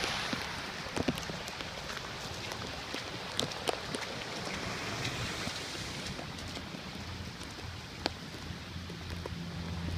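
Steady rain falling, with storm runoff washing across the road, and a few sharp taps of drops landing close by.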